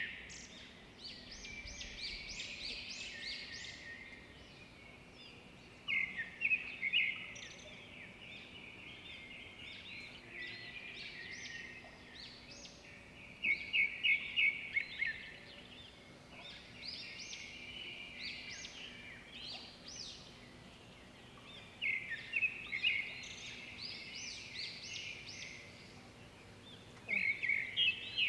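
Bird song: bursts of rapid, high chirping notes, repeated in phrases every several seconds over a steady background of outdoor noise.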